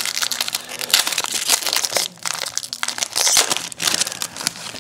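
A trading card pack wrapper crinkling and tearing as it is opened by hand, in irregular crackling spurts with short pauses about two seconds in and again near the end.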